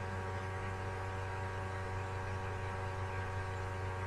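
Steady electrical hum with a buzz of overtones, the mains-type hum of the recording or call audio, holding at an even level.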